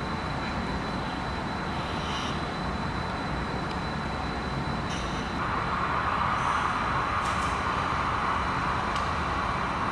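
HO scale model train running on the layout: a steady mechanical hum that gets louder about five and a half seconds in, with a thin high whine and a few faint clicks.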